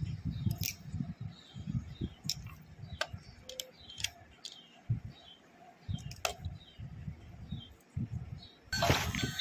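Light plastic clicks and taps as a toy car is handled and turned over, seven or so separate clicks. About a second before the end the battery-powered toy car's electronic music and sound effects start up loudly.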